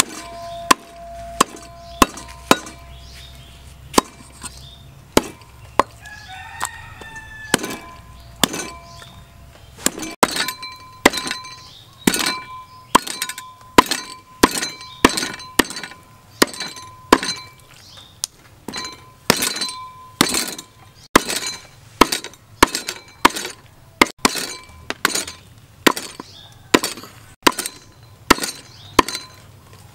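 A cleaver chopping a raw pork leg, meat and bone, on a wooden chopping board: a long series of sharp chops, each with a brief metallic ring from the blade, sparse at first and then steady at about one and a half a second from about ten seconds in. A rooster crows about seven seconds in.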